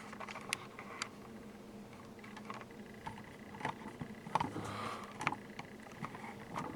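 Hands working small electronic parts on a breadboard: scattered light clicks and taps, with a brief soft rustle a little past the middle.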